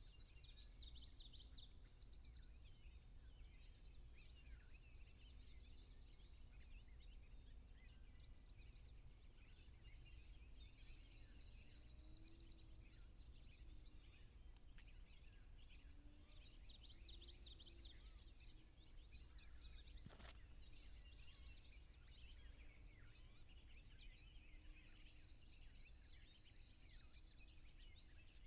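Faint birdsong: quick chirping phrases of a second or two, recurring every few seconds over a steady low rumble of background noise. A single sharp click about 20 seconds in.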